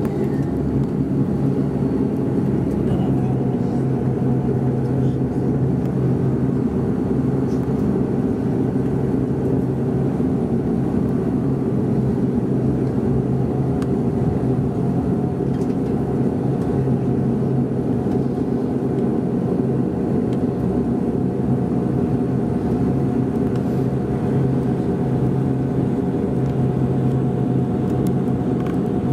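Steady drone of a Bombardier Dash 8-Q400's Pratt & Whitney PW150A turboprop engines and propellers, heard inside the passenger cabin: a low hum with a few steady tones above it.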